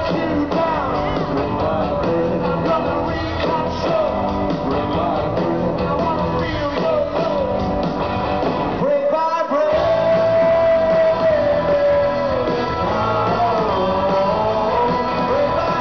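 Live rock band playing, with electric guitars, bass, drums and a male lead vocal, heard from the crowd. About nine seconds in, the band stops for a moment, then comes back in under a long held sung note.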